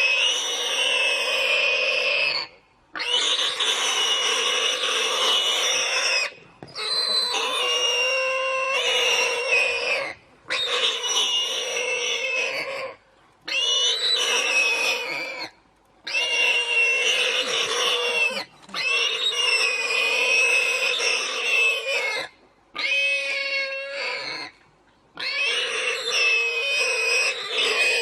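Animal cries with high, wavering pitch, in a run of segments of two to three seconds, each cut off abruptly by a brief silence.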